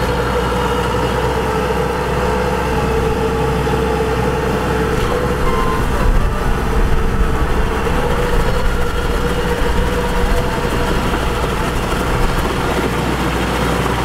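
Kubota DC-105X combine harvester's diesel engine running steadily as the machine crawls on its tracks, a continuous drone with a constant mid-pitched hum.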